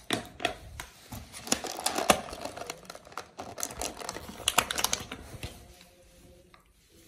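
Thin clear plastic blister tray crackling and clicking as small plastic number-robot toy pieces are pried out of it by hand: quick irregular clicks and crinkles that die down near the end.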